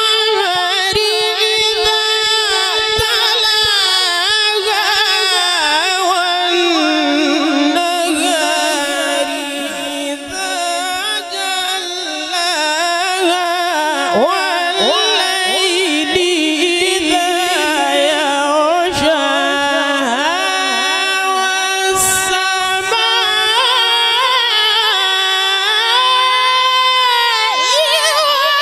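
A male Quran reciter's high, melodic voice in tilawat, drawing out long ornamented notes whose pitch glides and wavers, with no clear words. In the second half the notes are held longer and steadier.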